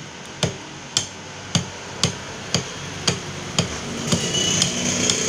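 Steady, evenly paced hammer-type strikes on a sawo-wood plank, about two a second, each a sharp knock with a brief ring, chipping pieces from the wood. A steady hum comes in about four seconds in behind the knocks.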